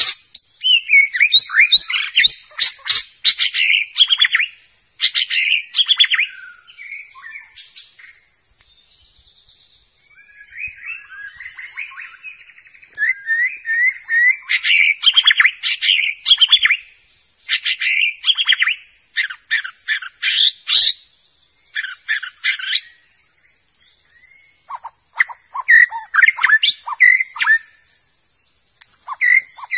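White-rumped shama (murai batu) singing loud, varied phrases of fast trills and sweeping whistles in bursts, with short pauses, over a faint steady high-pitched buzz.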